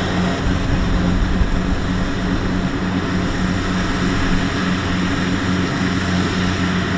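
Kubota DC-70X combine harvester running steadily: a constant low engine hum over an even wash of machinery noise.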